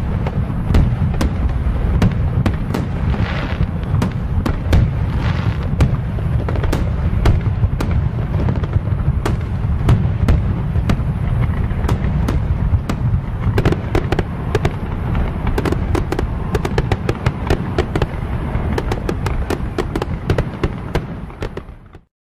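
Fireworks display: a continuous deep rumble of aerial shell bursts with many sharp cracks and crackles on top. The crackling grows denser towards the end, then the sound cuts off suddenly.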